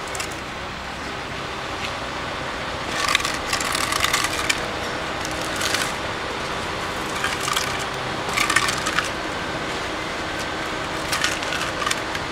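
Hard objects clattering and knocking in several short spells, over a steady background hum.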